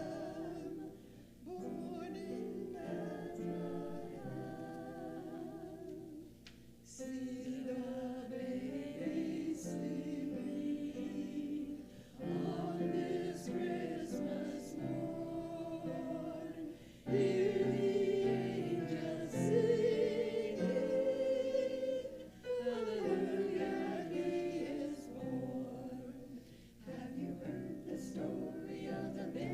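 Choir singing, phrase by phrase, with short breaks about every five seconds.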